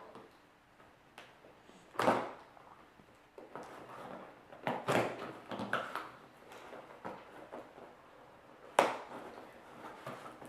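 A box being opened and unpacked by hand: a few sharp scrapes and knocks, about three seconds apart, with softer rustling between.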